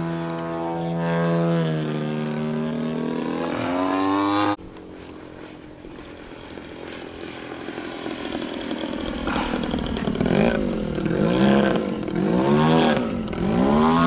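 Engine of a radio-controlled aerobatic airplane in flight, holding a steady note and then rising. About four and a half seconds in it drops suddenly to a much quieter sound. It then builds back up, and in the second half swoops up and down in pitch again and again as the throttle is worked through manoeuvres.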